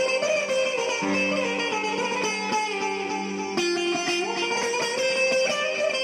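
Instrumental background music played on plucked strings, with sustained notes and a change of chord about three and a half seconds in.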